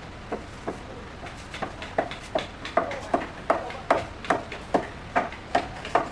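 Hammer blows on timber: two scattered knocks, then a steady run of about two and a half strikes a second from about a second and a half in, each with a short ring. This is the sound of timber being driven together while a wooden house frame is put up.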